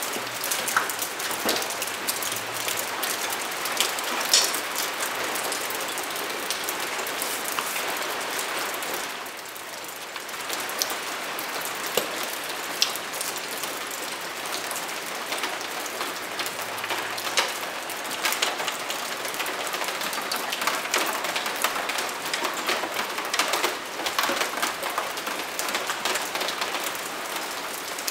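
Steady rain falling, a dense crackling patter with scattered sharp clicks on top.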